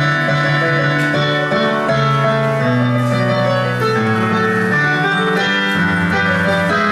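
Digital keyboard playing instrumental music: sustained chords over bass notes that change about every second.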